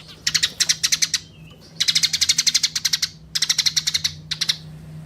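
Eurasian tree sparrow chirping in quick rattling runs of high notes, four bouts with short pauses between them.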